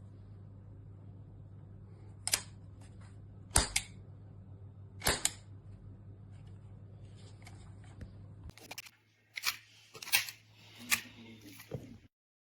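Sharp mechanical clicks from a metal toy cap-gun revolver being handled: three single clicks a second or more apart, then a quicker group of clicks near the end. A steady low hum runs under the first two-thirds.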